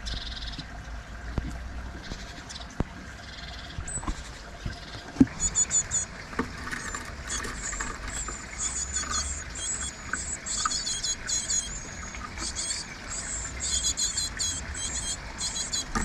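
Great tits calling rapidly and repeatedly in high-pitched chattering phrases, starting about six seconds in and running on, while a magpie raids their nest box. Earlier come a few sharp knocks, the loudest about five seconds in.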